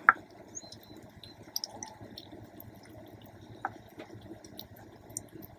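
A cat eating soaked freeze-dried fish morsels from a bowl: faint, irregular wet clicks of chewing and licking.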